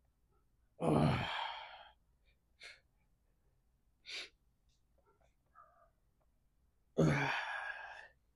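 A man's heavy, effortful exhales with a bit of voice in them, one about a second in and another near the end, each lasting about a second, with a few short, sharp breaths between them. This is exertion breathing while pressing dumbbells on an incline bench.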